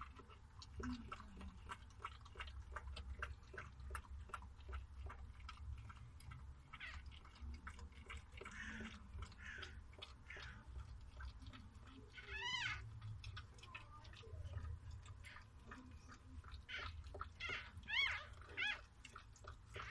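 Newborn puppy squealing in short high-pitched cries, faint at first, one clear cry about twelve seconds in and several close together near the end, over soft wet clicking from the mother dog licking.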